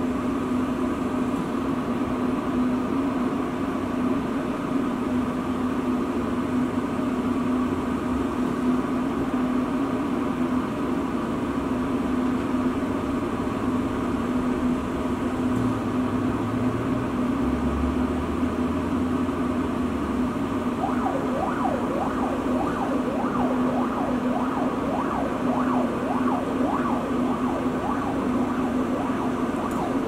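Small handheld jet torch burning steadily: a continuous hiss with a steady hum under it. About two-thirds of the way in, faint rapid wavering chirps come in on top.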